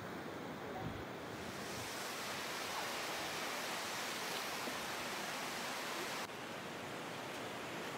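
Steady rushing hiss of a flooded river in spate, brown floodwater running over rapids. It grows brighter about two seconds in and drops abruptly about six seconds in.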